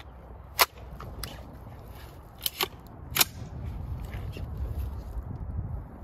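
Two shots from a compact carbine-style gun, about two and a half seconds apart, with a few fainter clicks between them.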